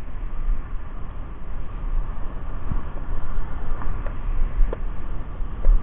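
Wind rumbling on the microphone over choppy sea water, a steady rushing noise that stays fairly loud.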